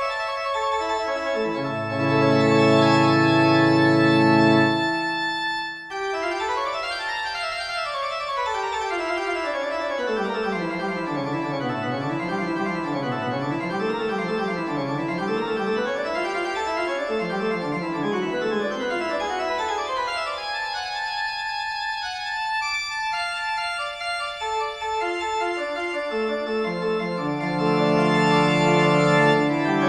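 Music on an organ-like keyboard: held chords, with runs of notes sweeping down and back up through the middle before the held chords return near the end.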